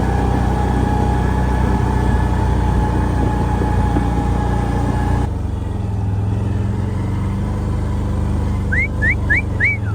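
A vehicle engine runs steadily, with a higher tone in its sound that cuts off abruptly about five seconds in while the low drone carries on. Near the end come four quick, short rising chirps.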